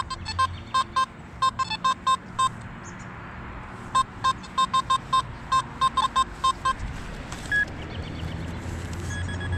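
Metal detector giving a run of short, same-pitched beeps, several a second, in two bursts, as the coil passes over a buried target that the detectorist takes for another pull tab.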